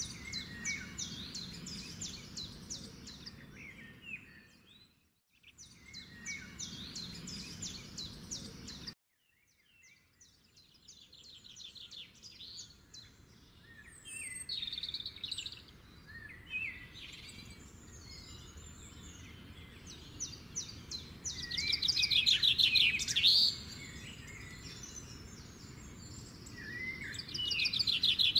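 Birds chirping and trilling in quick high notes over a low steady background noise. The sound drops out briefly about five seconds in and again around nine seconds, and the calls are loudest a little over twenty seconds in.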